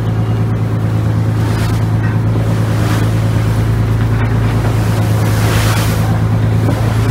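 Lobster boat's engine running steadily under way, a constant low hum, with the rush of wind and wake water over it. The rush grows louder about five and a half seconds in.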